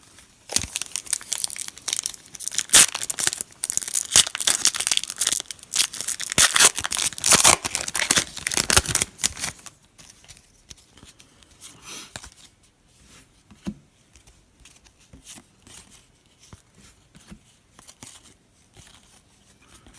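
A foil-wrapped Donruss football card pack being torn open, its wrapper tearing and crinkling loudly for about nine seconds. After that come softer, scattered ticks and rustles of the cards being handled.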